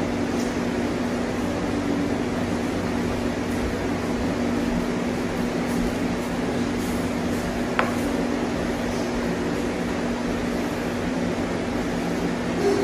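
A steady machine hum with a low droning tone, and one sharp click about eight seconds in.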